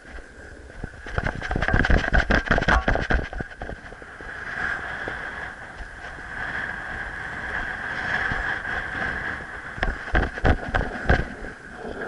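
Wind buffeting the camera's microphone in gusts, heaviest about a second in and again near the end, over a steady high whistle.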